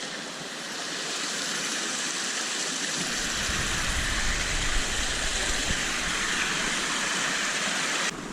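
Steady rushing of flowing river water, with a low rumble joining about three seconds in; it cuts off suddenly near the end.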